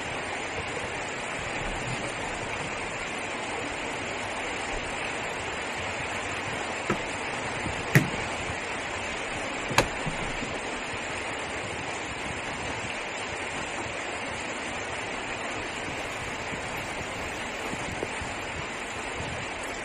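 Heavy rain falling steadily on and around a car, heard from inside it as an even hiss. Three short, sharp knocks come about a third and halfway through.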